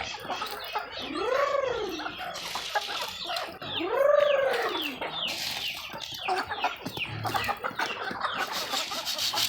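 Backyard chickens clucking and chirping, with two drawn-out calls that rise and fall, about a second long, one near the start and another around four seconds in.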